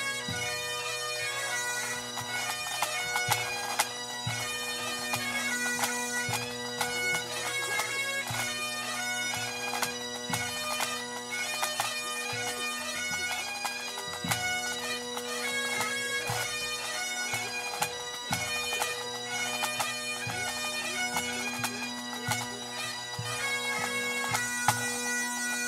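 Highland pipe band playing a competition medley: Great Highland bagpipes sounding a melody over steady drones, with drum strokes underneath.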